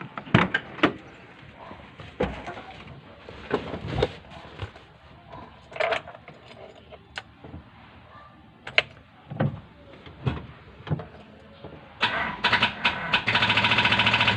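Scattered knocks and clicks, then about twelve seconds in a loud, very rapid clicking chatter lasting two to three seconds. This is typical of a car's starter solenoid chattering when the key is turned and a weak battery cannot crank the engine.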